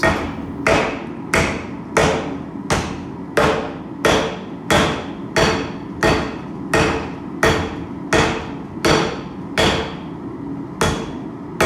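Heavy forging hammer striking hot spring steel on an anvil in a steady rhythm, about three blows every two seconds, each with a brief metallic ring, with one short pause near the end. These are forge-welding blows: the two pieces of steel are just starting to stick but have not yet welded.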